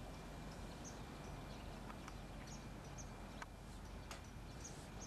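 Faint outdoor background noise with a low hum, short high chirps that keep recurring in pairs, and a few sharp clicks around the middle.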